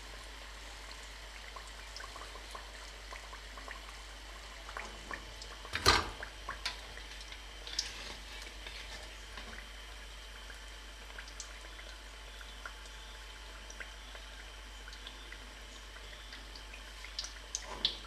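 Samosas deep-frying in hot oil in a karahi: a steady, low sizzle with small scattered crackles. About six seconds in comes one sharp clink of the metal slotted spoon against the pan.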